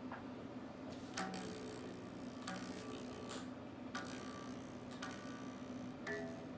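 Guitar amplifier humming faintly and steadily, with a handful of light clicks and taps spread through it, a few leaving a brief ringing note.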